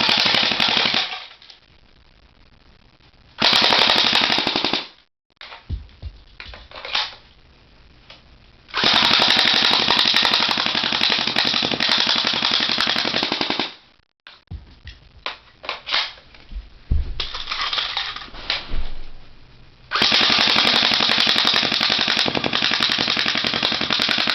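WELL R4 MP7 electric airsoft gun firing long full-auto bursts: one ending about a second in, a short one around four seconds, a five-second burst in the middle and a four-second burst near the end, with scattered single clicks and short bursts between.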